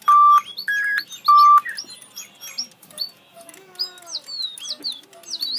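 Digibirds electronic toy birds singing: three loud, pure whistled notes in the first second and a half, then many quick high chirps, each falling in pitch.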